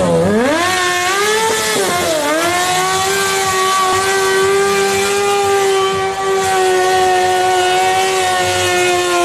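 Sport motorcycle engine revving up sharply, wavering and dipping about two seconds in, then held at a steady high pitch as the rear tyre spins in a smoking burnout.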